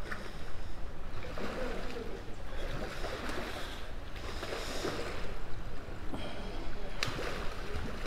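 A hooked salmon thrashing and splashing at the surface of a shallow river in repeated surges, over the steady rush of the flowing water, with one sharp click near the end.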